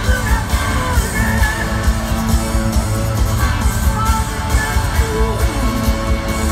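Live rock band playing loud electric guitar over bass and drums through an arena PA, recorded from among the crowd.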